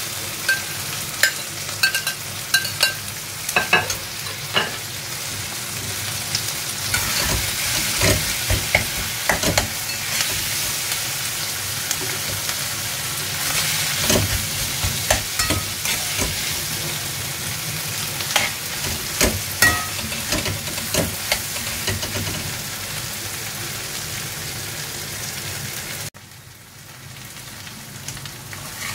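Potato bhaji (boiled potato with onion, tomato and spices) sizzling in oil in a non-stick kadhai, with irregular clicks and scrapes of a metal spatula stirring and tapping against the pan and plate. Near the end the sound drops suddenly to a quieter sizzle.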